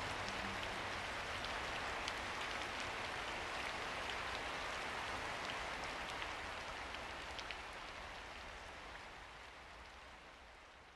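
Steady rain, an even hiss with a few separate drops ticking through it, fading out slowly over the last few seconds.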